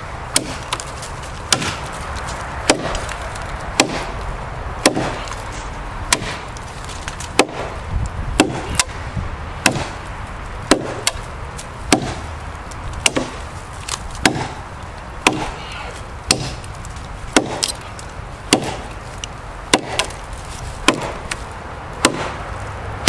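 Large chopping knife striking hard wood in steady, evenly paced chops, about twenty in all, roughly one a second, as the blade bites into a log.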